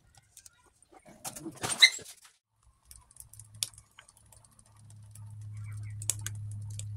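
Metal pot clattering loudly between one and two seconds in, then scattered sharp crackles of the wood fire beneath it. A steady low hum builds from about five seconds in.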